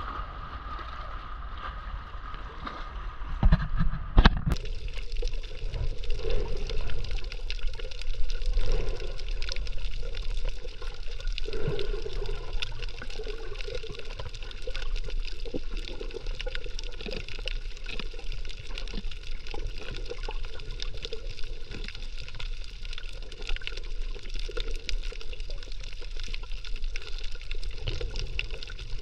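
Water splashing at the surface. About four seconds in the camera goes under, and the sound turns to muffled underwater noise with a steady fine crackle.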